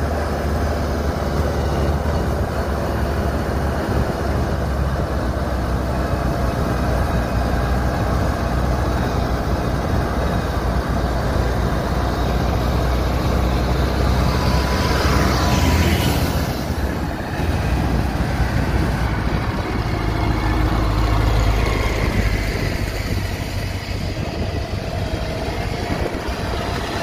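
Engines of tracked farm machines, rice-carrying crawlers and a Kubota crawler combine harvester, running steadily as they travel along a road. About halfway through, a machine passes close by, briefly louder, with a rise and fall in pitch.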